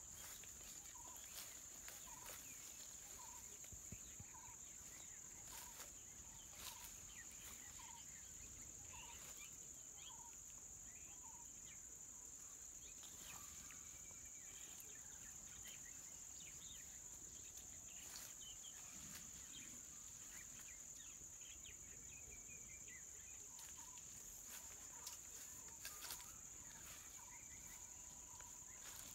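Faint outdoor insect drone, a steady high-pitched hum of crickets or similar insects, with a bird repeating a short call over and over in the first few seconds and again near the end, and scattered faint chirps.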